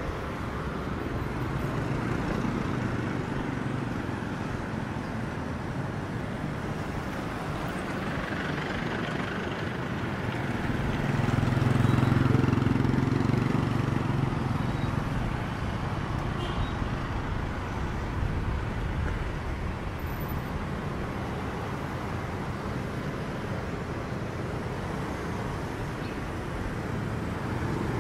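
Street traffic, a steady rumble of passing motor vehicles, with one vehicle passing closer and louder about twelve seconds in.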